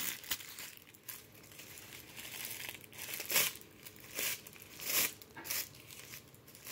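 Sheet of tissue paper rustling and crinkling as it is handled, stretched and crumpled, in irregular short bursts.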